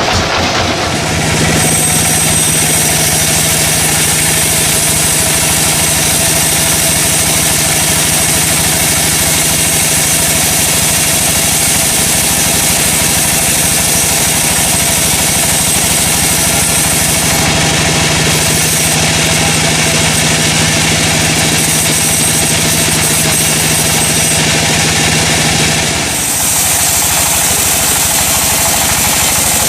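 Sawmill machinery running steadily with a continuous engine-like drone. A steady low hum joins about a second and a half in and drops out a few seconds before the end.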